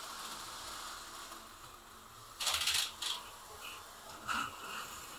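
Small slot cars running on plastic track with a faint steady hiss, broken about two and a half seconds in by a loud short rattling clatter and then a few lighter clacks, like a car clattering against the track or guard rail.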